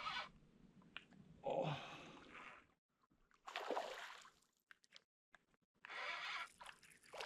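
Water splashing and sloshing in short bursts, a flathead catfish thrashing as it is landed at the boat.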